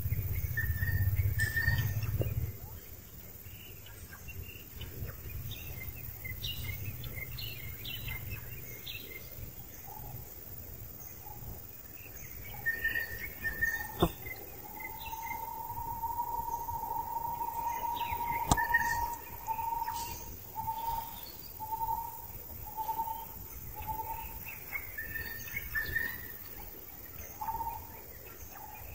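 A baby macaque crying: one long, steady, high-pitched call about halfway through, then short repeats of the same cry about once a second. Birds chirp now and then.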